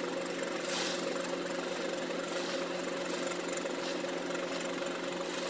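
Engine running at a steady idle-like hum, a constant low drone with a higher steady tone over it and a brief hiss about a second in.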